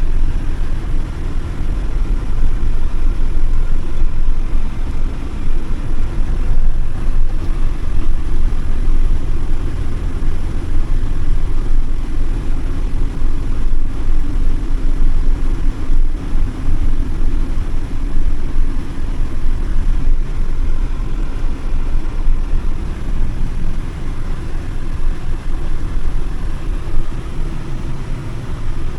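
Campervan driving along the road, heard from inside the cab: a steady low rumble of engine and tyre noise.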